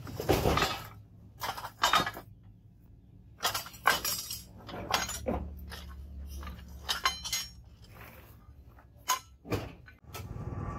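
Pieces of scrap steel, old leaf springs and metal bars, clanking and clinking against each other as they are picked through and pulled from a scrap pile: a string of sharp, ringing metal knocks. Near the end a steady rushing noise starts, from the charcoal forge's air blower.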